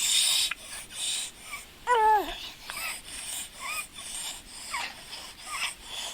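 Stridor on auscultation: high-pitched, whistling breath sounds, one short gliding squeal about once a second, the loudest falling in pitch about two seconds in. Stridor is the sign of obstruction of a large airway such as the larynx or trachea, mostly from a foreign body in children.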